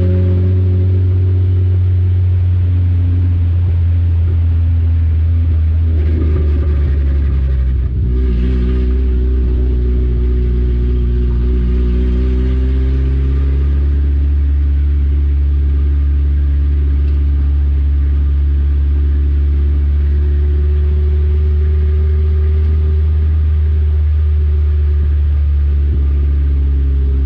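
Four-cylinder dirt-track race car's engine running steadily at a low, even speed, heard from inside the car, its pitch rising and falling slightly now and then.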